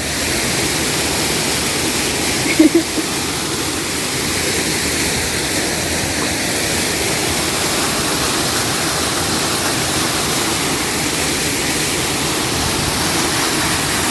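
Waterfall water rushing, a steady loud noise without a break, with one short louder blip a little under three seconds in.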